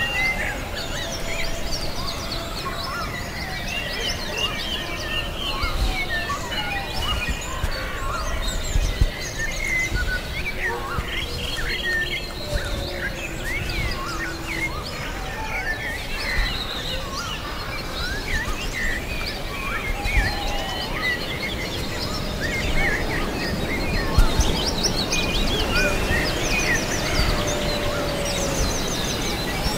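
Forest bird chorus: many birds chirping and calling at once over a steady low background noise, with a few drawn-out lower calls among them.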